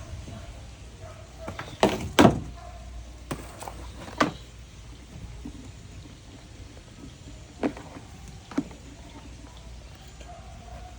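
Scattered knocks and thumps, about six of them, the loudest a close pair about two seconds in: handling of a Stinger shop vac before it is switched on.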